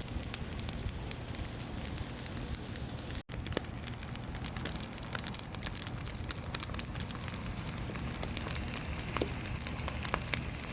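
Fried rice and chopped spare rib meat frying in a hot pan: a steady sizzle with scattered crackling pops, broken for an instant about three seconds in.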